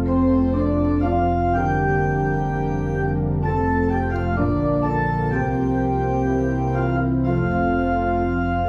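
Pipe organ playing slow, sustained chords, the upper notes moving every half second to a second over long-held low pedal notes that change only a couple of times.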